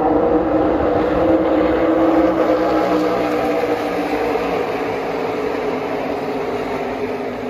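The V8 engines of a pack of NASCAR Xfinity Series stock cars droning together as the field passes down the front stretch at reduced pace under a caution. The drone holds a steady pitch and eases slowly in loudness toward the end.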